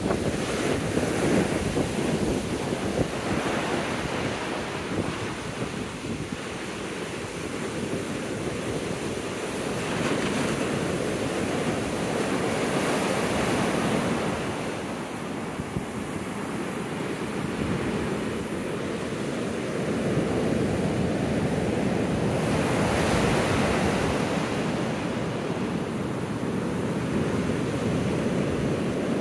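Heavy ocean surf breaking and washing up the beach, swelling and easing in slow surges several seconds apart. The waves are storm-raised swell ahead of an approaching tropical storm, and wind is buffeting the microphone.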